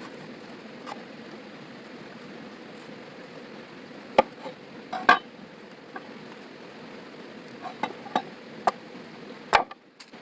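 Cooking utensils and cookware knocking and clinking, about seven sharp short strikes, the loudest two about four and five seconds in and a cluster near the end, over a steady rushing background.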